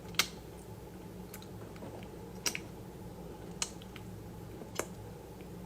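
Close-miked chewing of crunchy food: five short, sharp crunches, about one a second, over a low steady hum.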